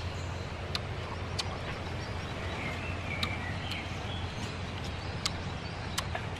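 Outdoor ambience: a steady low background noise with about half a dozen sharp, scattered clicks and faint bird chirps about three seconds in.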